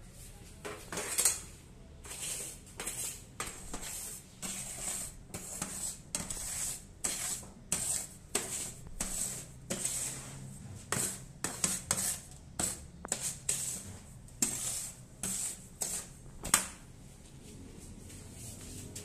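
Sieving machine sifting granulated palm sugar: a run of short hissing rasps, about two a second and not quite even, over a faint low hum.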